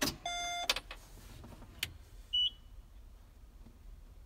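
Electronic beeps and clicks in a tractor cab as its electronics come on: a click, a steady beep of about half a second, two more clicks, and a short high beep about two and a half seconds in.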